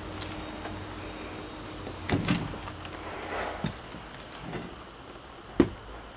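Footsteps and knocks as someone climbs the entry steps into a motorhome: two thumps about two seconds in, a few light clicks, and one sharp knock near the end, the loudest of them.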